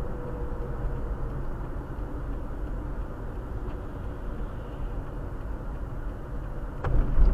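Steady road and engine noise of a moving car, heard inside the cabin: a low rumble with tyre noise. A faint whine fades out in the first second or so, and a couple of knocks come near the end as the rumble swells.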